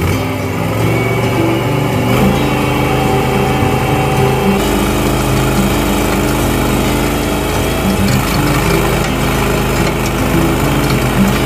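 23 hp engine of a microBull Pro 2 mini tracked skid steer running steadily under load. It drives a Muratori rotorvator through the machine's dedicated hydraulic auxiliary pump as the rotor works compacted soil.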